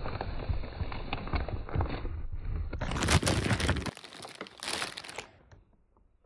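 Clear plastic packaging bag crinkling as a knit sweater is handled inside it, a dense run of crackles and sharp snaps that dies away about five seconds in.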